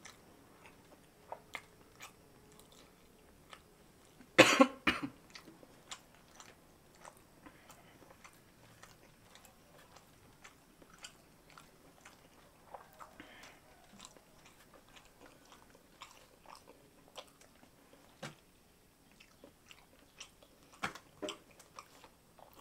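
Quiet mouth sounds of a person eating rice and jengkol stew by hand: scattered small smacks and clicks of chewing and of fingers working the wet food. About four seconds in comes a short, loud double burst, the loudest sound here, and a few sharper clicks come near the end.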